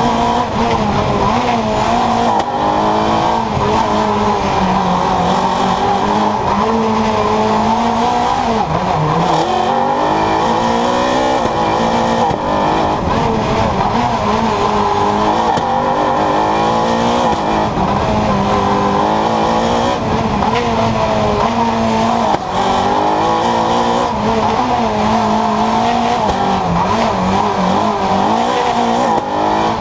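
Renault Clio R3 Maxi rally car's two-litre four-cylinder engine at full stage pace, heard from a camera on the car: the revs climb and drop again and again through gear changes and braking for corners.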